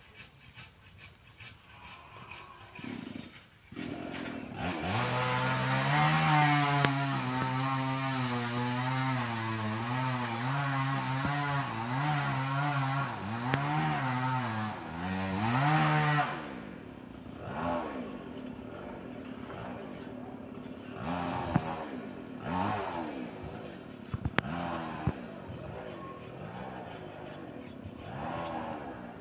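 A chainsaw, up in the tree, runs hard for about eleven seconds from a few seconds in, its pitch wavering slightly, then is revved up and down in a series of short revs.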